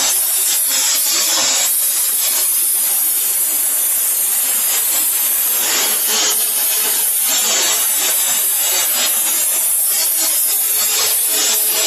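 Aluminum radiator fin-forming machine running, a steady, high hissing noise with faint steady tones underneath.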